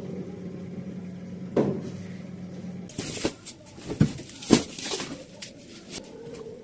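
Several sharp knocks and clunks of things being handled, over a steady low hum that stops about three seconds in; a steadier, higher hum comes in near the end.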